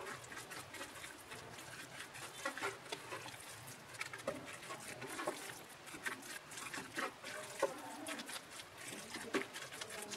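Red silicone spatula mixing minced meat with spices and green chilli-onion paste in a ceramic bowl: irregular wet squelches, with scrapes, taps and brief squeaks of the spatula against the bowl.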